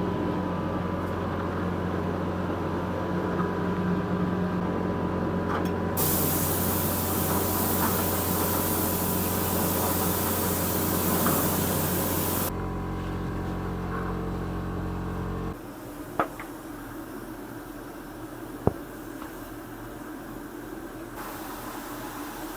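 A large paint sprayer spraying lacquer: a steady motor hum, with a loud hiss of spraying for about six seconds from six seconds in. The hum changes pitch and cuts off a few seconds after the hiss stops, followed by two sharp clicks.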